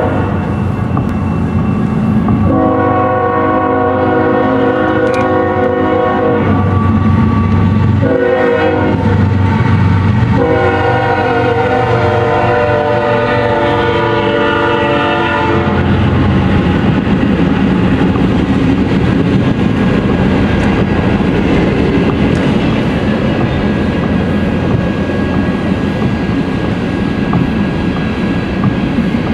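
Diesel freight locomotives passing close by, their air horn sounding several long blasts over the engine rumble until about sixteen seconds in. Loaded grain hopper cars then roll past, wheels clacking on the rail joints.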